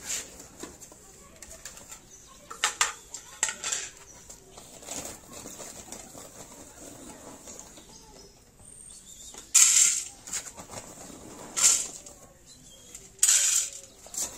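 A plastic bag rustling in about five short bursts, along with small plates clinking as they are set down on concrete.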